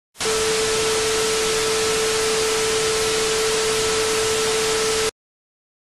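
Television static hiss with a steady test tone over it. It cuts off suddenly after about five seconds.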